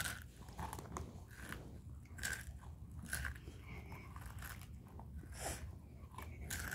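A child chewing spicy Takis rolled tortilla chips: faint, irregular crunches a few times a second apart.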